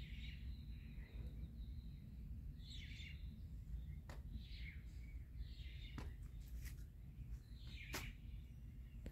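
Birds chirping in short calls every second or two over a steady low rumble, with a few sharp clicks.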